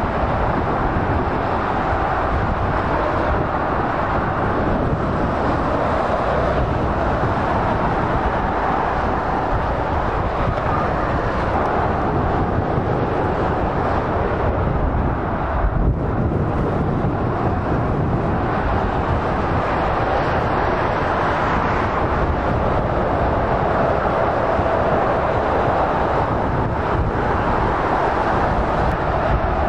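Steady motorway traffic noise: lorries and cars passing at speed on a multi-lane motorway, their tyres and diesel engines blending into one continuous low rumble.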